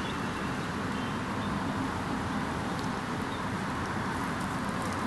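Steady outdoor background noise: a constant low rush with a few faint, short high ticks and chirps.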